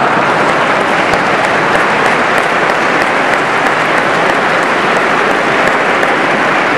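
Church congregation applauding steadily, many hands clapping at once.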